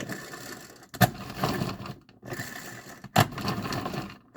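Hand-powered food chopper being worked in strokes, chopping cooked chicken: each stroke is a sharp click followed by about a second of rattling whirr from the spinning blades, twice.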